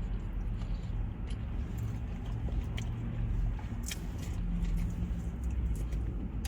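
Quiet chewing of fried chicken, with a few faint mouth clicks, over a steady low rumble.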